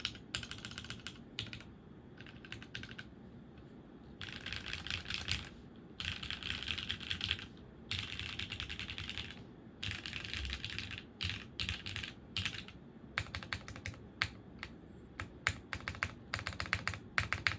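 Typing on a TGR x Linworks Dolice Alice-layout mechanical keyboard with lubed Cherry MX Pre-tool Black linear switches, an aluminium plate and GMK keycaps. The keystrokes come in fast bursts of a second or two, with short pauses and a few scattered single strokes between them.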